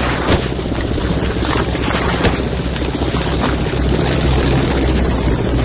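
Rapid, irregular gunfire over a steady engine drone.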